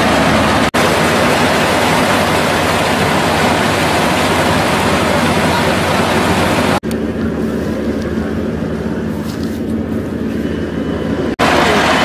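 Yanmar combine harvester running as it cuts and threshes standing rice: a steady, loud engine and machinery noise with a low hum. The sound breaks off briefly twice, and from about seven seconds in to near the end it is quieter and duller.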